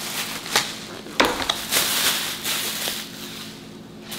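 Plastic packaging and a grocery bag crinkling and rustling as groceries are unpacked, with a sharp knock about a second in.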